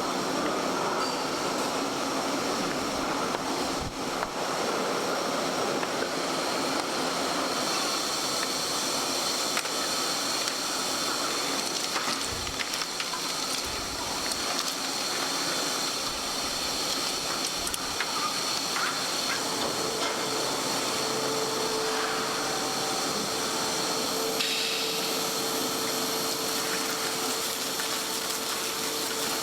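Meat-processing machinery running steadily with a constant hissing noise. A faint steady whine joins in about two-thirds of the way through.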